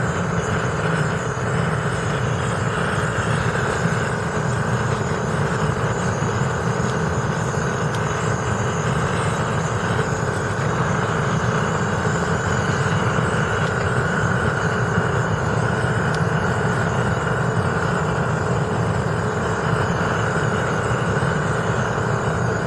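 Long-wand propane torch burning steadily into a small furnace, a constant rushing noise with no breaks, as it heats a can crucible of zinc to melting.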